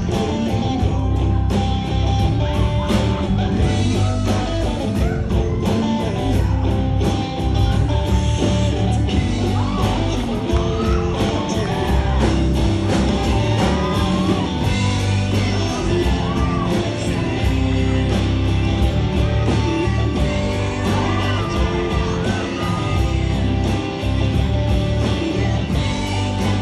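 A rock and roll song with singing, guitar and a steady beat, played loud over a club's sound system.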